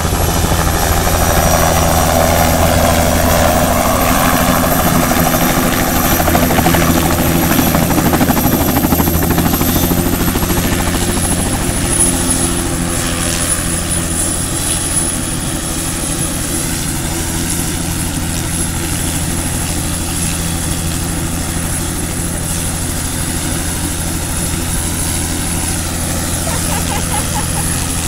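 Small two-bladed helicopter landing and then running on the ground with its rotor turning. It makes a steady engine and rotor drone with a high thin whine over it, a little louder for the first ten seconds or so while it comes down.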